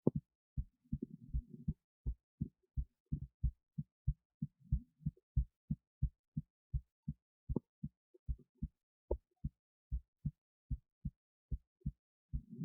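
A person's heartbeat picked up through the chest: an even run of short low thuds, about three a second, with a faint rustle twice in between.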